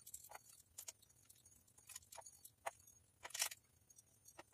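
Faint, scattered light clicks and tinkles of sequins sliding off a plate into a small container, with a louder cluster a little over three seconds in.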